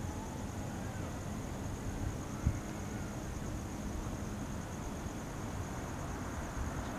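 Quiet outdoor ambience: a low steady rumble under a thin, steady high-pitched drone, with one soft thump about two and a half seconds in.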